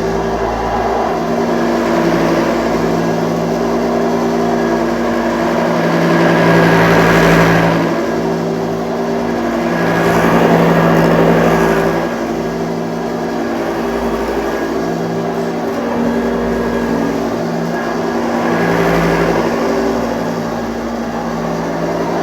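1985 Hoover Junior Dirtsearcher U1206 upright vacuum cleaner running steadily, a constant motor hum with an airy rush that swells louder several times.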